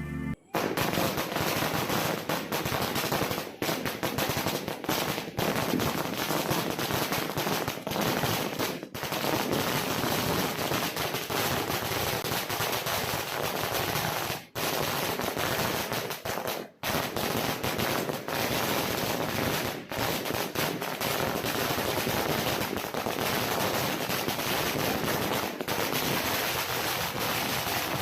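A 10,000-wala string of firecrackers going off: a dense, continuous rapid-fire crackle of small bangs, with a few brief breaks.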